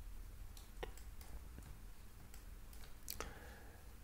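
Faint computer mouse clicks, a few scattered single clicks with two clearer ones about a second in and just after three seconds, over low room hum.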